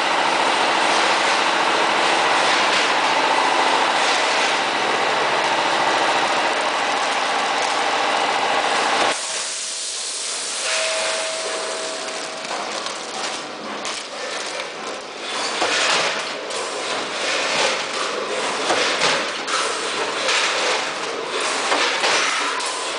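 Automatic vertical form-fill-seal packing machine with a multihead weigher running: a loud, steady mechanical hum and hiss that drops off abruptly about nine seconds in, then irregular clicks and clacks as the machine cycles through forming and sealing bags.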